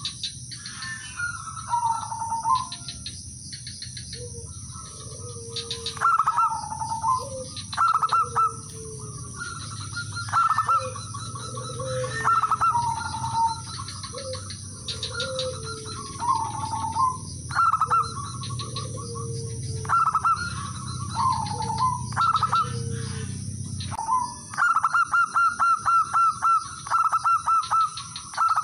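Male zebra dove (perkutut) singing its cooing song: phrases of quick stuttering notes that end in a rolling, falling coo, repeated every couple of seconds, then a fast run of about a dozen short staccato notes near the end.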